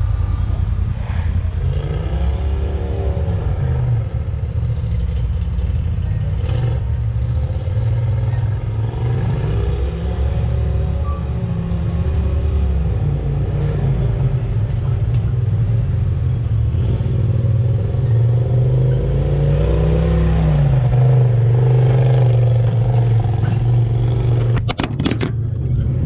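Polaris RZR Turbo S side-by-side engine running under light throttle while being driven up onto a trailer, its pitch rising and falling several times as the throttle is worked. A quick clatter of knocks comes near the end.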